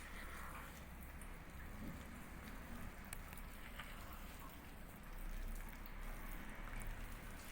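Spatula folding thick cake batter in a mixing bowl: faint, irregular wet squishing and scraping, with a few small clicks.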